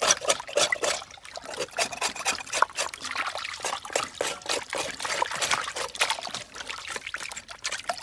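Large knife scraping charred cow skin clean in a metal basin of water, with water splashing and trickling, in quick irregular strokes.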